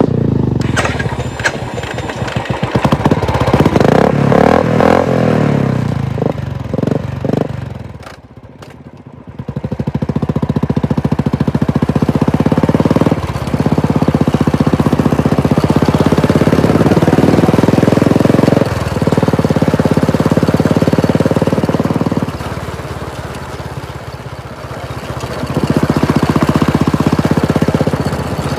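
Royal Enfield Classic 350 single-cylinder engine running through a Red Rooster aftermarket silencer. The rider is on the throttle and easing off, opening up and dropping back: it goes quieter about eight seconds in and again a few seconds before the end.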